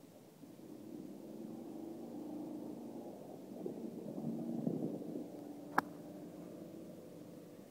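A golf club strikes a ball once, a single sharp click a little before the end. Under it runs a low, steady engine-like rumble with a faint hum, swelling in the middle.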